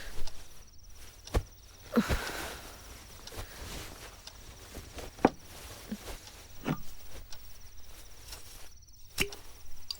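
Crickets trilling steadily at night, with a handful of short, scattered knocks and taps.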